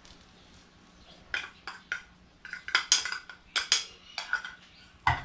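Spoon clinking against a bowl in about ten irregular, sharp knocks, starting about a second in.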